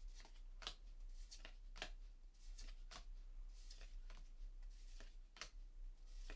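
Faint swishes and ticks of MetaZoo trading cards being slid one at a time from the front of a hand-held stack to the back, about two a second at an uneven pace.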